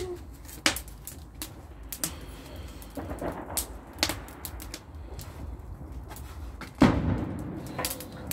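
Scattered sharp crackles and pops from bonfire-night fireworks, then a loud boom about seven seconds in as a firework goes off in the fire.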